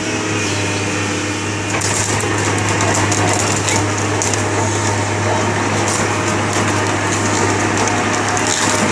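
Hitachi UH055-7 hydraulic excavator's diesel engine running steadily with a constant low hum, a little louder from about two seconds in.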